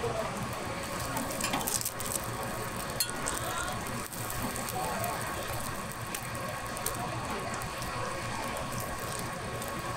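Food-stall cooking sounds: sharp clinks and knocks of utensils and cookware over a steady background hiss.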